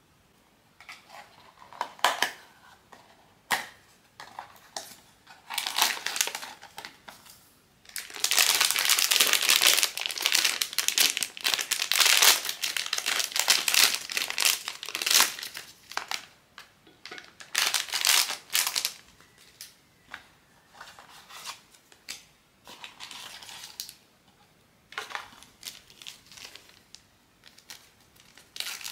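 Blind-box packaging crinkled and torn open by hand: irregular rustles and sharp crackles, with a long stretch of dense, continuous crinkling from about eight to fifteen seconds in.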